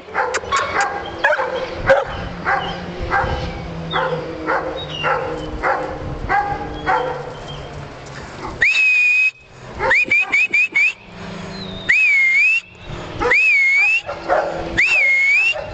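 A dog barking over and over, about two barks a second, for the first half. Then a person whistling to call the dogs in: one long held whistle, a quick run of short whistles, and three dipping-and-rising whistles.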